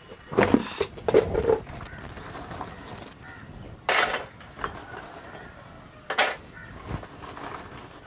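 Clunks and knocks as a metal charcoal chimney starter is handled on a plastic bucket of charcoal, loudest in the first second and a half. A crow caws twice, about four and six seconds in.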